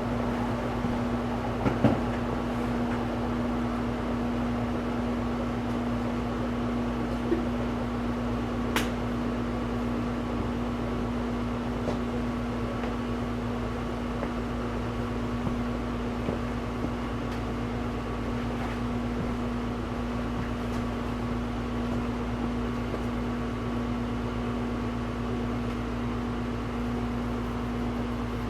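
56-inch KDK industrial ceiling fan running steadily at medium speed: a constant motor hum over an even rush of air, with a few faint ticks.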